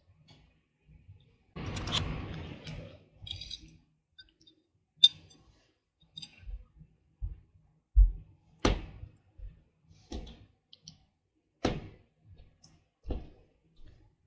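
Close-up eating and dish-handling noises: a short scraping rustle about two seconds in, then a string of sharp clicks and soft knocks of a spoon and fingers against the dish.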